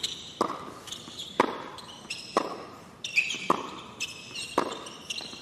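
Tennis rally on a hard court: racket strikes on the ball trade back and forth at about one a second, five hits in all, with lighter ball bounces between them.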